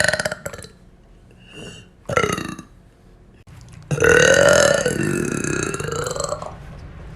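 A woman burping: a loud burp trailing off at the start, a short burp that falls in pitch about two seconds in, and a long drawn-out burp about four seconds in whose pitch wavers before it fades.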